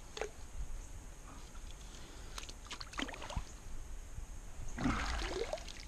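Water splashing and trickling around a kayak: a few scattered small splashes, with the loudest splash near the end.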